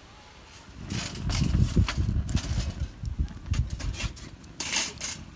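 Firewood burning vigorously in an open fire pit, crackling and popping, over a low, uneven rumble; it starts about a second in.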